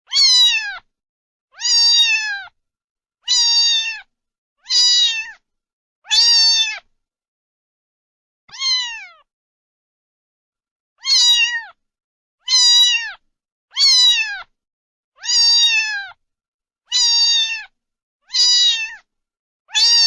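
Domestic cat meowing over and over, about a dozen high, slightly falling meows each under a second long, with a pause of a few seconds midway broken by one softer meow.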